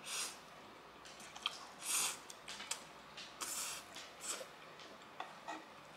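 Close-miked eating of spicy nuclear fire noodles: a short slurp as the noodles go in, then quiet chewing with soft wet mouth clicks and a few brief hissy slurps or breaths, about 2 and 3.5 seconds in.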